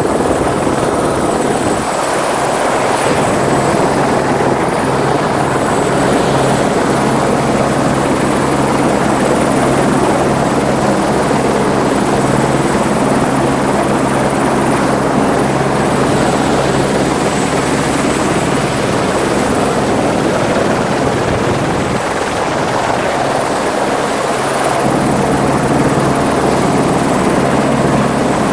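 Helicopter running on the ground with its rotor turning: a loud, steady beat of the blades under a high, thin whine.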